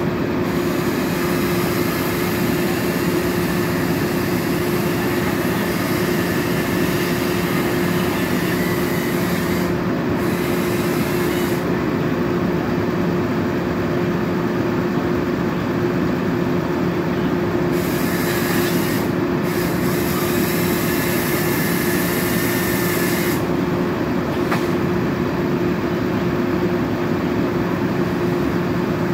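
Utility bucket truck's engine running at a steady speed to work the boom, a constant drone with a higher hiss that comes in twice, near the middle and again a little later.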